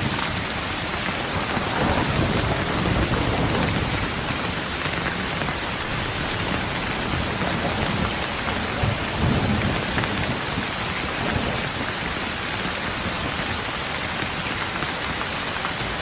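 Steady rain falling on a road, with low rolling thunder that swells about two seconds in and again around nine seconds in.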